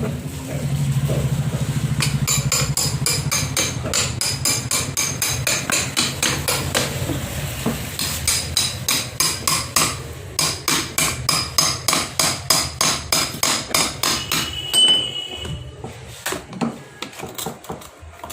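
Repeated hammer blows with a metallic ring, about two a second, breaking into the hard plastic case of a sealed Su-Kam 135 Ah inverter battery; a brief low hum comes before the blows start.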